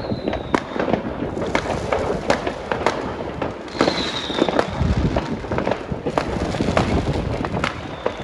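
Fireworks going off: dense, continuous crackling and bangs, with short falling whistles near the start and again about four seconds in.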